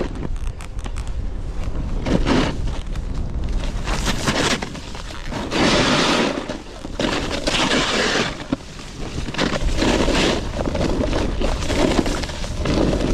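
Snowboard scraping and hissing across snow, swelling and fading every second or two as it carves, with wind rumbling over the microphone.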